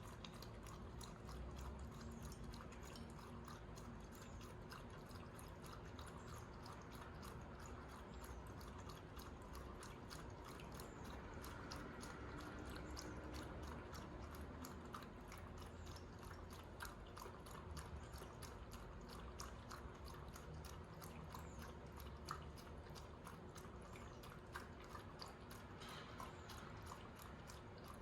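Shih tzu lapping water: a quiet, steady run of small wet mouth clicks, several a second.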